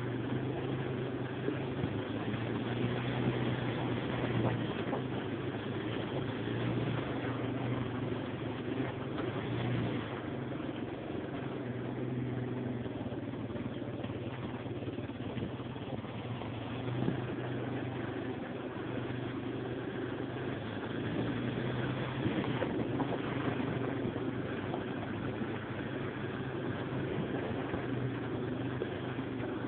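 Yamaha Warrior ATV's single-cylinder four-stroke engine running under way on a dirt trail, its steady note easing and picking up a little with the throttle.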